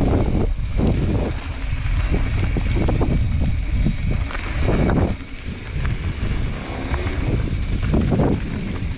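Wind rushing over the microphone of a mountain bike's handlebar camera as the bike rides a dirt singletrack at speed, loud and gusty with uneven surges, easing a little past the middle.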